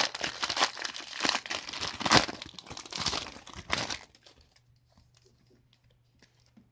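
Trading card booster pack wrapper being torn open and crinkled, with a sharp rip about two seconds in; the crinkling stops about four seconds in, leaving only faint light ticks.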